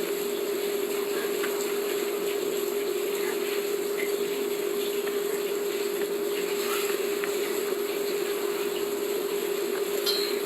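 A steady hum and hiss, with a few faint, scattered crunches from a giant panda chewing bamboo.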